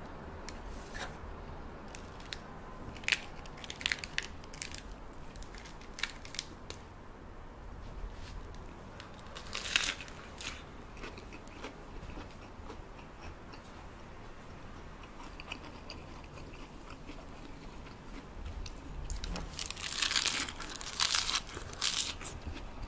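Crisp crunching and crinkling of fresh lettuce leaves as they are handled and folded into a wrap. It comes in scattered short bursts and clicks, with a longer, louder run of crunching near the end.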